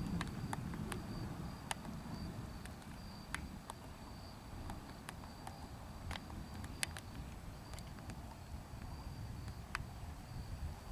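Scattered raindrops of a light sprinkle ticking irregularly on a hard surface close to the microphone, over a low rumble of wind. A faint thin high whine comes and goes.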